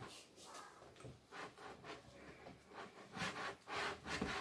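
Wooden spoon stirring a stiff cornflour-and-PVA-glue slime mixture in a glass bowl: faint, irregular scraping strokes, a few a little louder in the second half.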